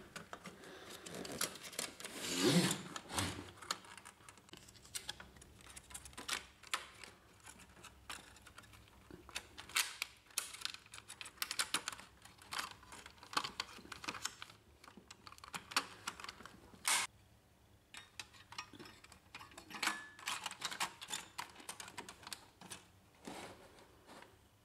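Irregular clicks, taps and light rattles of hands fitting a circuit board and its sheet-metal shield plate into a Brother HL-1110 laser printer's frame, with a louder clatter about two and a half seconds in and a sharp click near seventeen seconds in.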